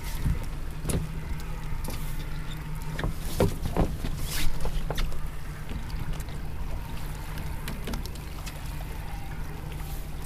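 Small boat drifting on open water: a steady low rumble with scattered knocks and splashes, a few of them close together about three to four and a half seconds in.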